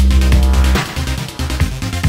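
Electronic music with a heavy bass and a steady beat; a long low bass note is held through the first part, then the beat carries on.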